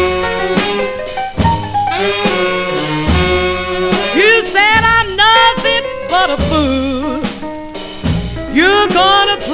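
A 1953 rhythm-and-blues record playing: a band over a steady beat, and from about four seconds in a melody line that slides between notes.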